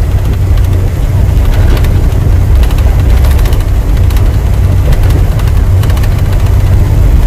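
Tata truck's diesel engine and drivetrain running steadily at highway speed, heard from inside the cab as a loud, even low rumble.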